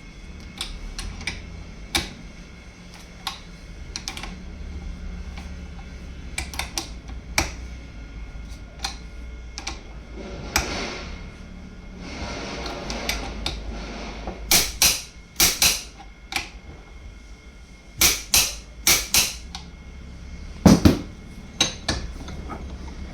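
Metal tools and parts clicking, clinking and knocking at irregular intervals over a low steady hum, with a hissing stretch about halfway through and loud groups of sharp metallic hits near the end.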